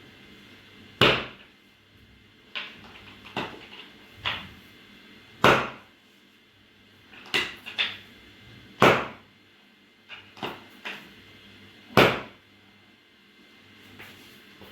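Sharp knocks and thumps: four loud ones about three to four seconds apart, with softer, quicker knocks between them.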